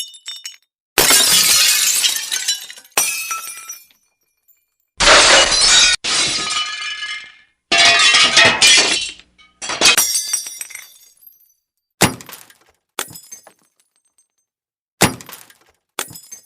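A string of glass-breaking sound effects: about a dozen separate smashes, each a sudden crash followed by shards tinkling and dying away, some brief and some ringing on for a second or two.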